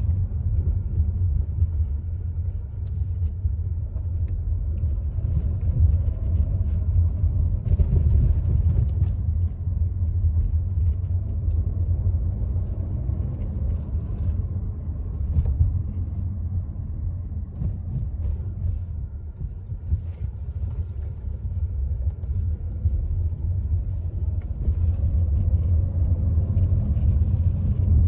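Steady low road and drivetrain rumble inside a moving Volkswagen Tiguan's cabin, with faint brief higher crackles now and then, the clearest about eight seconds in.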